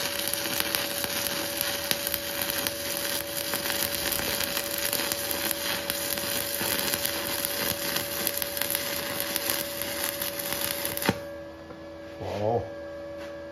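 Stick-welding arc crackling and sizzling steadily as an 8018 electrode burns on a steel plate. It breaks off sharply about eleven seconds in when the rod is lifted, leaving the inverter welder's faint steady hum.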